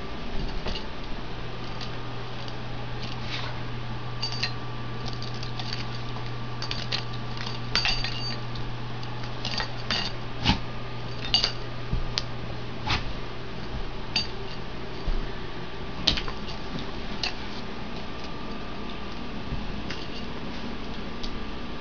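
Greyhound chewing a squeaky toy: short squeaks and clicks at irregular intervals, some with a brief high squeal, over a steady low hum.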